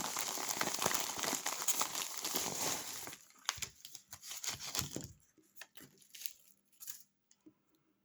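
Packaging crinkling as hands unpack it: dense, continuous crinkling for about three seconds, then scattered crinkles and clicks that thin out and stop near the end.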